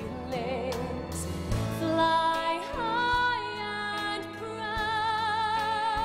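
A woman singing a slow ballad over instrumental accompaniment, holding a long note with vibrato near the end.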